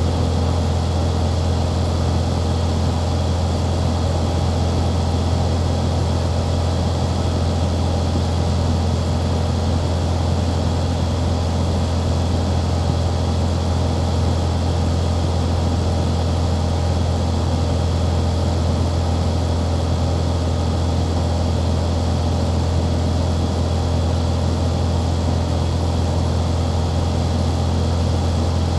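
Light aircraft's engine and propeller droning steadily in cruise-descent, with a strong low hum and no change in pitch or level.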